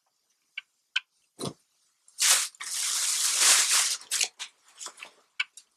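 Clothes being handled: a few soft taps, then a long swishing rustle of fabric as a shirt is lifted and spread out, followed by several short rustles.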